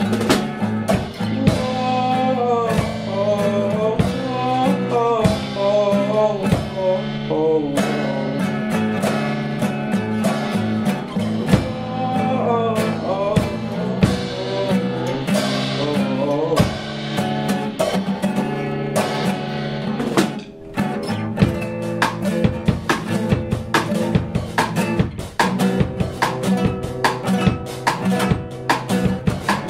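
Live song on acoustic guitar and a Gretsch drum kit, with a singer's voice in two stretches over the strummed chords. The drumming gets busier in the second half.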